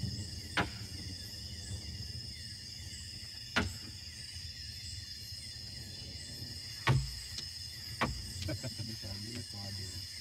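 Domino tiles clacked down one at a time on a wooden table: single sharp knocks about half a second and three and a half seconds in, then several closer together near the end. Under them a steady chorus of night insects such as crickets.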